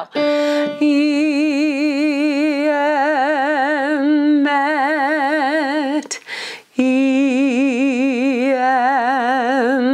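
A woman singing a vocal exercise in the lower part of her range, sustaining an 'ee' vowel that opens into 'eh' as in 'met', with steady vibrato. A single piano note sounds briefly at the start to give the pitch. There is a breath about six seconds in, then a second phrase a little lower.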